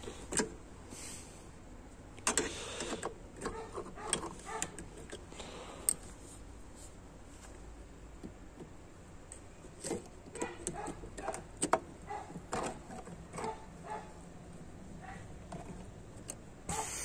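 Scattered light metallic clicks, taps and short scrapes from work on an automatic transmission's input drum, with a run of quick clicks about two-thirds of the way through, while its clutch spring is held compressed under a steel-pipe lever.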